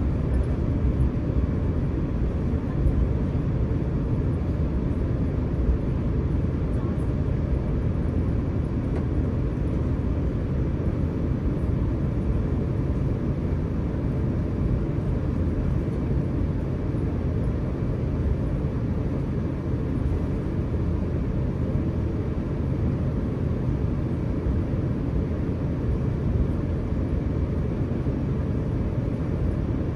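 Steady low rumble in the cabin of an Airbus A350-900 taxiing, its Rolls-Royce Trent XWB engines at low taxi power.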